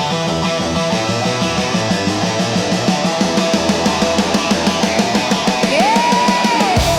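Progressive hard-rock music driven by electric guitar, with a steady pulse of about three beats a second coming in about three seconds in. Near the end a single high note slides up, is held, and falls away.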